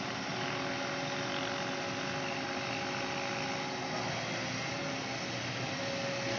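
Excavator diesel engine running steadily, a constant hum with faint steady tones.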